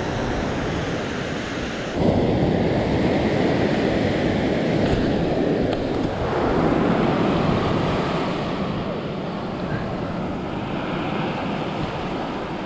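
Surf washing up the beach, with wind on the microphone; the sound gets suddenly louder about two seconds in.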